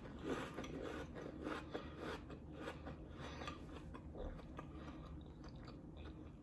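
A person chewing a mouthful of saltine crackers with smoked oyster and cheese: faint, irregular crunching and mouth sounds.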